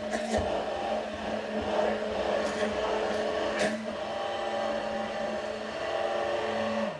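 Immersion blender running steadily as it emulsifies hollandaise sauce, with a few sharp clicks. Near the end the motor is switched off and winds down, its pitch dropping.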